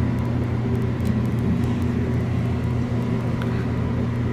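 Steady low hum and rush of a glass Otis observation elevator car travelling up its hoistway, heard from inside the cab.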